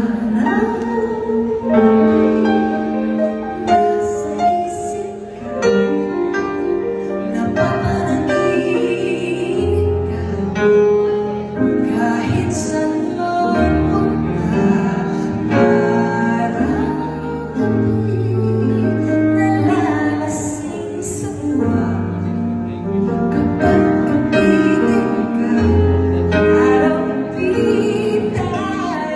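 A woman singing live into a microphone, with instrumental accompaniment and bass notes underneath.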